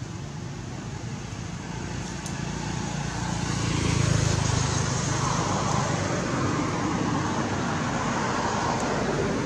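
Road traffic noise from a passing motor vehicle: a broad rumble that swells about three to four seconds in and stays up.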